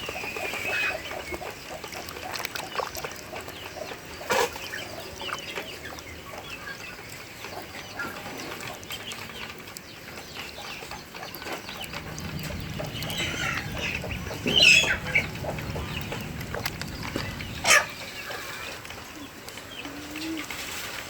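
Young ducklings, about eleven days old, peeping in scattered short high chirps, with a few sharp knocks, the loudest near the end, and a low rumble for a few seconds past the middle.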